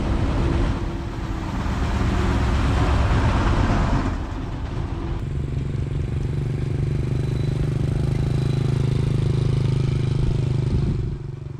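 Motorbike engine running while being ridden, with wind rushing over the microphone. For the first four seconds or so the rushing noise is loudest; after that a steady engine hum carries on and drops away near the end.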